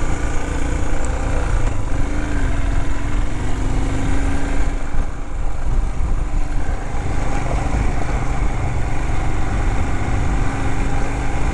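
Royal Enfield Himalayan's single-cylinder engine running steadily as the motorcycle rides along a gravel track, with a dense rumble of wheels and wind over it.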